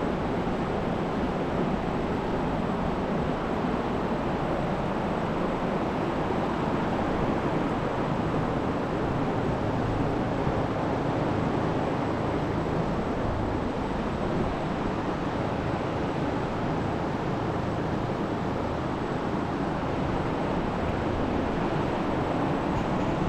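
John Deere 4020 tractor running steadily while pulling a hay tedder through the field, a continuous even rumble and rush with no change in pace.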